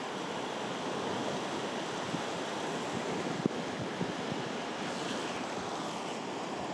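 Small waves washing steadily onto a sandy beach, an even rush of surf with a little wind. One brief click about three and a half seconds in.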